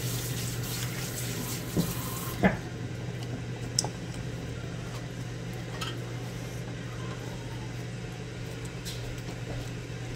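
Silicone spatula stirring a simmering ground-beef and green-bean mixture in a skillet, with a few light knocks against the pan, over a steady low hum. A high hiss cuts off about two and a half seconds in.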